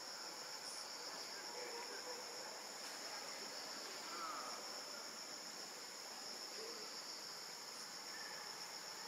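Steady, high-pitched chorus of insects, an unbroken drone with no pauses, with faint scattered calls now and then underneath.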